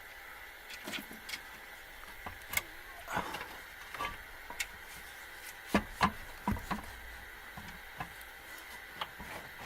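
Scattered clicks, knocks and light scrapes of metal parts being handled as the aluminum upper intake manifold is worked into place on a Ford 351 V8, with a cluster of sharper knocks about six seconds in.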